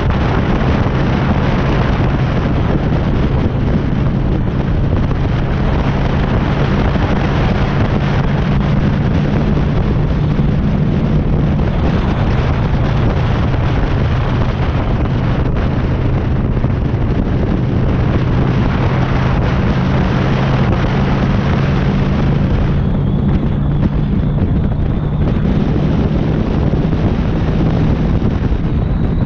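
Honda Shadow cruiser's V-twin engine running steadily while riding, with heavy wind noise on the helmet-mounted camera's microphone.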